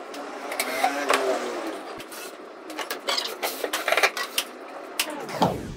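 Sharp knocks and clicks of wooden shelf boards being handled and set in place, repeated irregularly.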